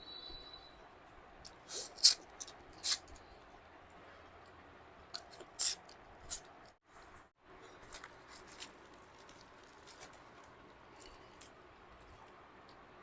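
Person eating chole bhature and chicken: scattered sharp wet smacks and clicks of chewing, the loudest about two and six seconds in, with fainter ones later.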